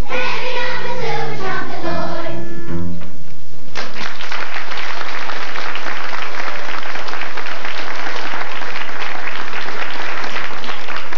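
A children's choir with accompaniment sings the final notes of a song, ending about three seconds in; then the audience applauds.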